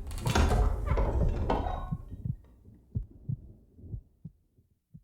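Horror sound-effect mix: a loud, dense clamour fades out about two seconds in, leaving a heartbeat of low thuds that grows fainter.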